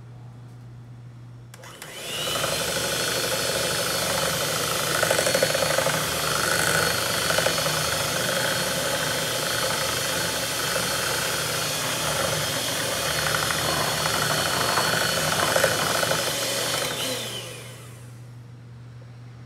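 Mondial electric hand mixer running, its steel beaters whisking thick, fridge-set custard cream smooth to break up lumps. It starts suddenly about two seconds in, runs steadily, and winds down near the end.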